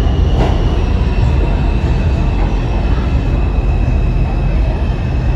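New York City subway train running, a loud steady rumble with a steady high whine over it and a short click about half a second in.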